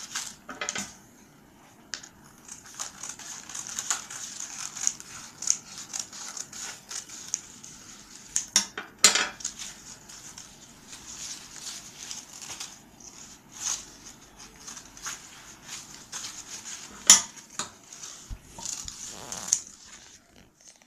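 Sheets of craft paper being handled on a hard tabletop: irregular rustling with scattered sharp clicks and taps, the sharpest near the middle and about three-quarters of the way through.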